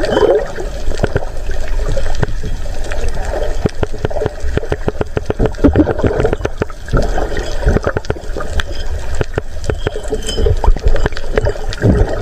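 Underwater water noise heard through a camera in the sea: gurgling, sloshing water with many sharp clicks scattered throughout.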